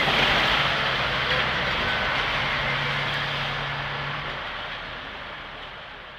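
A heavy machine's engine running with a low steady hum under a loud rushing noise. The hum drops out about four seconds in, and the rush fades away toward the end.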